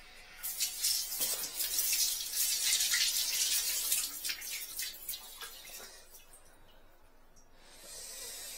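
Water running hard from a washbasin tap into an attached hose, a hissing rush that fades after about four seconds and comes back more weakly near the end.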